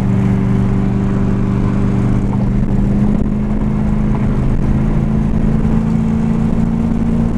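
A small car's engine and road noise heard from inside the cabin while driving: a steady drone whose pitch rises slightly about three seconds in.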